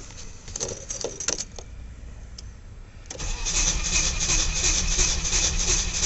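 Keys jingling and clicking at the ignition, then about three seconds in a Volvo 740's starter begins cranking the gasoline engine in an even, pulsing rhythm without it catching. This is a cold start below freezing with the block heater off.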